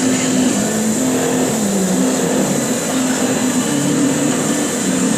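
CNC machine milling a metal profile: a steady high spindle whine with lower motor tones that step up and down in pitch as the axes move.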